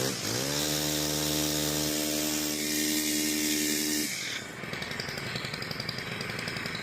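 STIHL FS 131 R brushcutter's 4-MIX engine, freshly tuned up with a new carburetor, revving up as the throttle is opened, holding steady at high revs for about three and a half seconds, then dropping back to idle about four seconds in. It runs smoothly, "purring like a cat".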